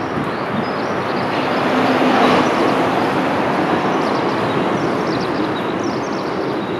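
River water rushing steadily over rocks, a continuous wash of noise that swells slightly about two seconds in.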